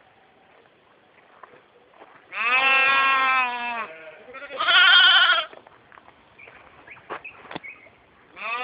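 Young goats bleating: two long calls a couple of seconds in, the second with a wavering pitch, and another call starting right at the end, with a few faint knocks in between.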